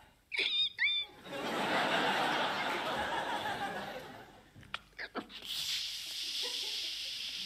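Improvised vocal sound effects with studio audience laughter: two quick rising whistle-like calls, then the audience laughing for a few seconds. After a couple of clicks, a steady hiss made by mouth starts about two-thirds of the way in and keeps going.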